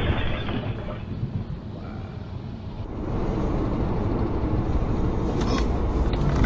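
Moving car's engine and tyre noise heard from inside the cabin, a steady rumble. The noise changes abruptly about three seconds in, and a few faint clicks come near the end.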